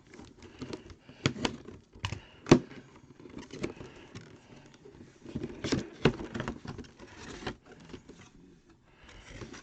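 Handling noise from a plastic mini football helmet and its packaging: irregular taps, clicks and scrapes with light rustling as it is turned over and unwrapped. Two sharper knocks come about two and a half and six seconds in.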